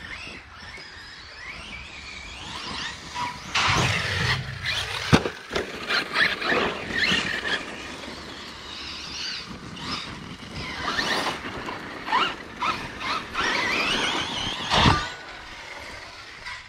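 Electric brushless RC basher trucks driving on dirt: a high motor and drivetrain whine that rises and falls with the throttle, with tyres scrabbling on the dirt. A couple of sharp thumps from the trucks hitting the ground, the loudest near the end.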